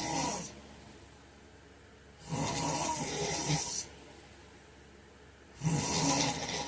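A sleeping man snoring in a steady rhythm, roughly one snore every three seconds. One snore tails off just after the start, a full snore lasts about a second and a half, and another begins near the end. Each snore is a low rough sound with a breathy hiss over it.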